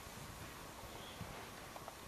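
Faint, steady hiss with a low rumble underneath: room tone, with no distinct sound.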